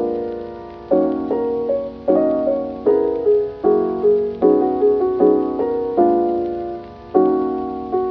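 Background music: a piano playing a gentle, even series of chords, each struck and left to ring and fade before the next, about one every second.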